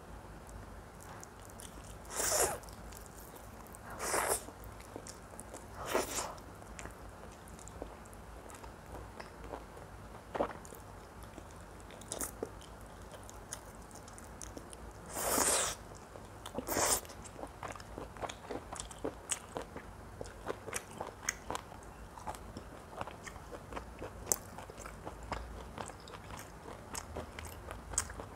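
Close-miked mouth sounds of a person eating mutton curry with rice: five loud short bites or smacks spread over the first half, then a run of many quick, small wet clicks of chewing.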